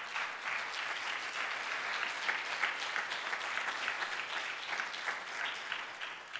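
Church congregation applauding: dense, steady clapping that dies down at the end.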